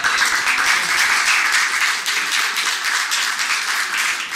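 A roomful of people applauding, many hands clapping at once, easing off near the end.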